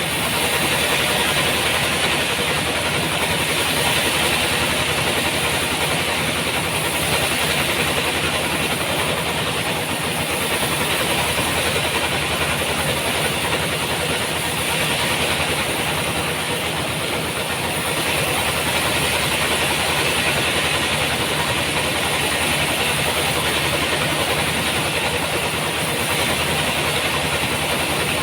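Sawmill running steadily while sawing a large trembesi (rain tree) log: a continuous machine drone with a strong, even hiss of the saw cutting.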